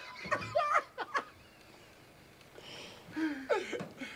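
Two men's hushed vocal sounds without clear words: a few short voiced sounds in the first second, a breathy hiss about two and a half seconds in, then another short voiced sound near the end.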